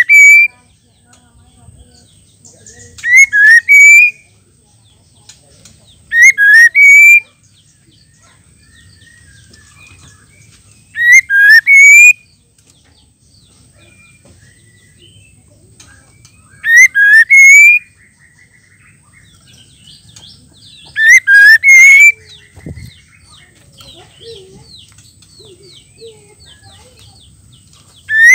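Female white-rumped shama (murai batu) calling: a loud, short phrase of rising whistled notes, about a second long, repeated roughly every four to five seconds. It is the female's call that keepers play to spur male shamas into full song.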